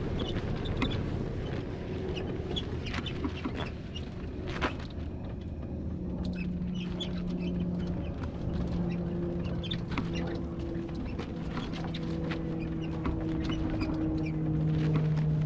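Wind rumbling on the glider-mounted camera's microphone, with scattered small clicks and crunches of footsteps on dry dirt as the hang glider is walked toward launch. From about six seconds in a steady low hum joins, growing louder near the end.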